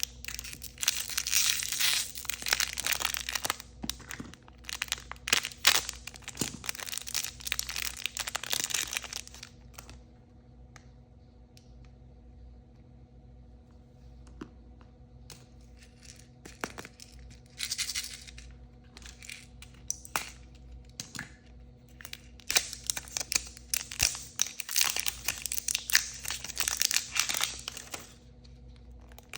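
Surprise packaging such as blind-bag wrappers being torn open and crinkled by hand, in long crackly bursts: one over the first third, a quieter stretch with a few small clicks, then a short burst and another long run of crinkling near the end.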